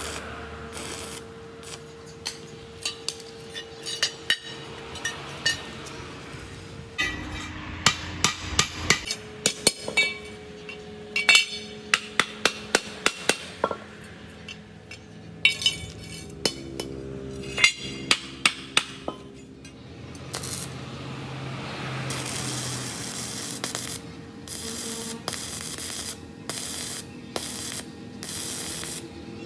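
Hammer blows on metal during work on a torque rod bushing: sharp ringing strikes in quick clusters of several a second, with gaps between. In the later part, short stretches of hiss-like noise switch on and off.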